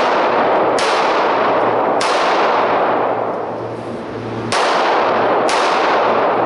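Four pistol shots from a semi-automatic service pistol, in two pairs about a second apart with a longer gap between the pairs, each ringing out in a long echo off the walls of the indoor range.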